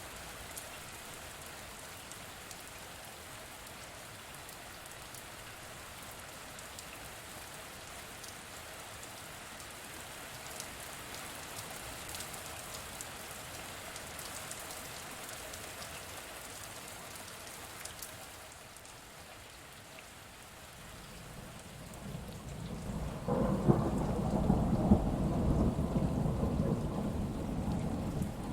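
Steady rain falling, with scattered drops ticking, then about three quarters of the way through a long, loud rumble of thunder builds and starts to fade near the end.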